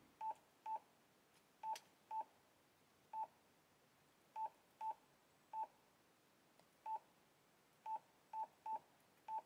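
Key-press beeps from a Yaesu FTM-400XDR radio's touchscreen keyboard as a text message is typed. There are about a dozen short beeps of a single pitch, one per key tap, coming at an uneven typing pace.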